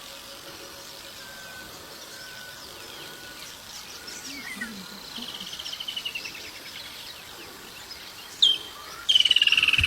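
Wild animal chorus: a steady high insect hiss with scattered short whistles and chirps. A rapid pulsed trill starts about five seconds in, and a louder, slightly falling pulsed trill comes near the end.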